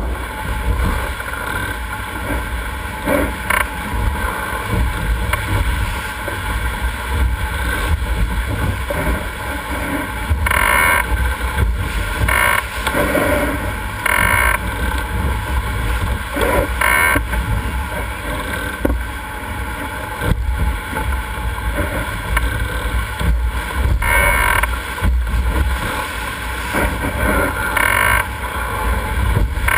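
Sailboat sailing hard and heeled: wind buffeting the microphone and water rushing along the hull, with several bursts of spray hitting the boat.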